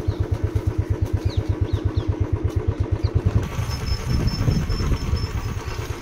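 An engine idling nearby, a rapid, even low thudding that holds steady throughout.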